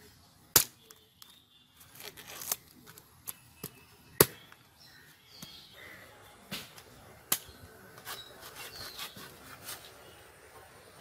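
A large knife chopping into whole ice apples (palm fruits), hacking off the tough husk in irregular sharp chops. The loudest chops come about half a second and four seconds in.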